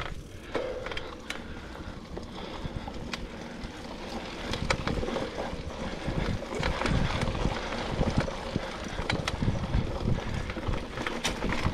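Mountain bike rolling over a dirt singletrack trail: tyre noise on the dirt with frequent sharp knocks and rattles from the bike over bumps, and wind buffeting the action camera's microphone.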